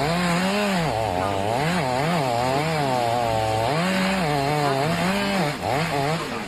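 A small engine, of a chainsaw kind, revved up and down over and over, its pitch rising and falling several times a second, with a brief dip near the end.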